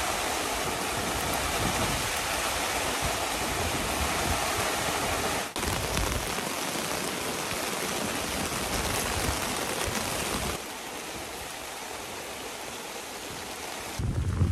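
Heavy rain falling as a steady, even hiss, stopping abruptly and resuming about five seconds in and dropping to a softer hiss about ten and a half seconds in. A low rumble comes in near the end.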